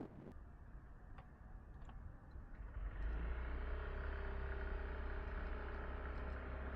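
Yamaha Tricity 155 scooter's single-cylinder engine getting under way. It is quiet at first with a couple of light clicks, then louder about three seconds in, with a low rumble and a steady drone.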